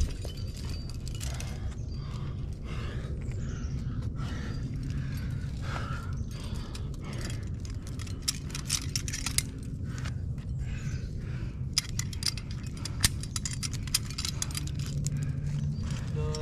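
Metal climbing gear, carabiners and cams on a harness, clinking and jangling in scattered sharp clicks, thickest in the second half, over a steady low rumble.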